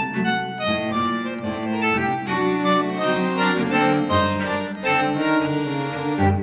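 Background music: a melody of held notes over chords.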